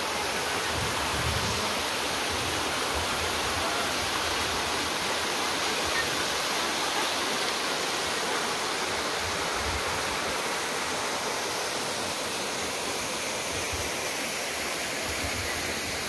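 Small waterfall cascading down a rock face, a steady rushing of water.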